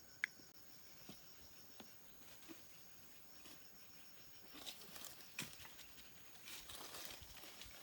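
Faint, steady insect chirring with scattered sharp snaps and clicks. From about halfway, more frequent crackling and rustling, like leaves or twigs being handled or stepped on.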